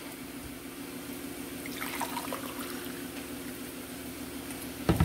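Hot water poured from a kettle into a ceramic mug, filling it steadily, over a steady low hum. A few faint clinks about two seconds in, and a sharp knock near the end.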